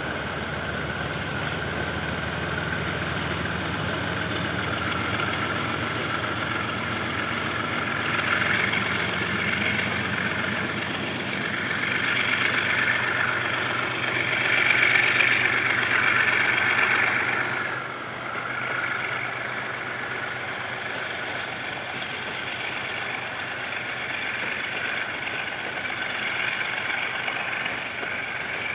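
KiwiRail freight train passing: the low running of its diesel locomotives early on, then the steady noise of the wagons rolling along the rails, loudest about halfway through and dropping suddenly soon after. Heard through a security camera's microphone.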